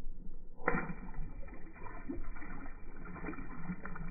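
Water sloshing and lapping around a dock, with an uneven low rumble and a few soft knocks.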